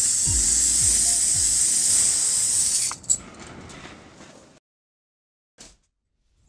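Electronic background music with a steady beat of deep thudding drum hits about twice a second under a loud hissing high layer. It stops about three seconds in on one sharp final hit and fades out, leaving silence broken only by a brief short sound near the end.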